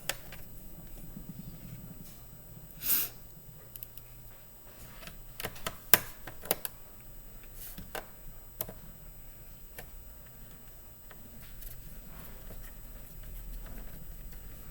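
Small metal screws being driven into a laptop's bottom cover with a screwdriver: a short scrape about three seconds in, then a scattering of sharp little clicks.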